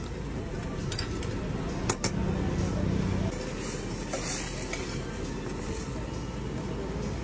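Steady rumble of street traffic, with a few sharp clinks of a metal spoon against a steel cooking pan, the loudest about two seconds in.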